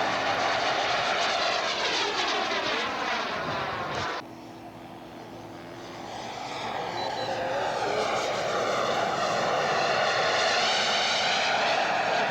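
Engine of a radio-controlled scale model airplane passing, its pitch falling, cut off abruptly about four seconds in. Then another model airplane's engine grows louder, its pitch rising and then holding steady.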